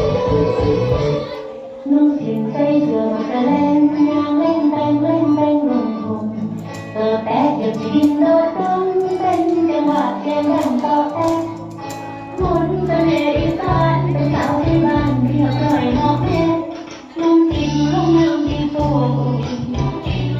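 Music: a song with a sung melody over an instrumental backing with a pulsing bass line.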